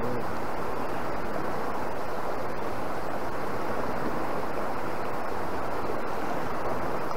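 Steady rush of the Cowlitz River's current flowing past a gravel bar.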